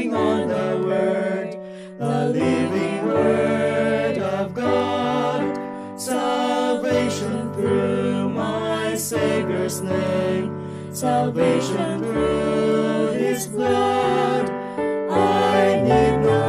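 Mixed vocal quartet of soprano, alto, tenor and bass singing a gospel hymn in four-part harmony, phrase after phrase with short breaths between lines.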